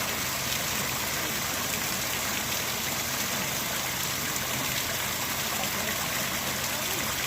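Running water flowing steadily, an even hiss that neither rises nor falls.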